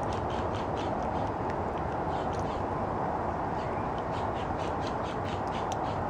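A Quaker parrot splashes in a shallow dish of water as it bathes: quick runs of short splashes and flicks over a steady background rush.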